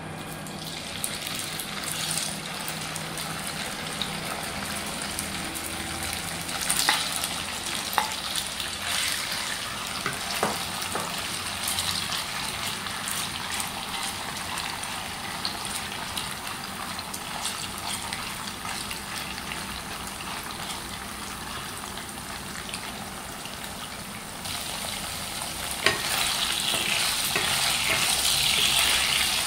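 Pieces of pork sizzling in hot cooking oil in a nonstick wok, stirred with a wooden spatula that knocks against the pan now and then. The sizzle grows louder about 25 seconds in.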